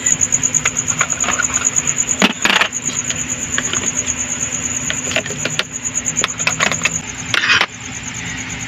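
Plastic pens and markers clicking and clattering as they are picked up and dropped into a fabric pencil case and a pen holder, with a few sharper knocks. A steady, high, pulsing trill runs underneath.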